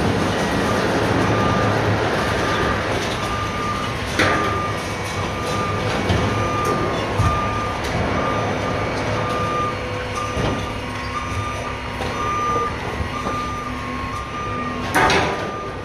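A construction vehicle's reversing alarm beeping steadily, about two high beeps a second, over the low rumble of its diesel engine, with a few sharp knocks and clanks along the way.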